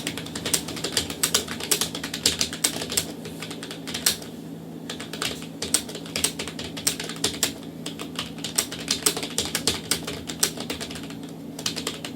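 Computer keyboard typed on fast and steadily, about five or six keystrokes a second, with short pauses about four seconds in and near the end.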